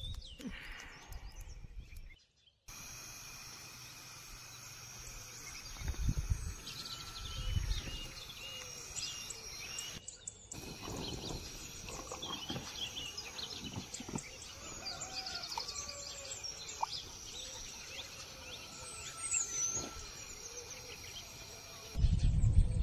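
Birds chirping and calling outdoors, with a few soft knocks as a kettle and camp stove are handled. A louder low rushing noise comes in near the end.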